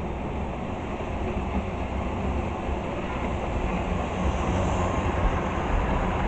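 Model railway diesel locomotive and a rake of wagons running past on the layout track: a steady rumble of wheels and motor that grows louder as the train comes close.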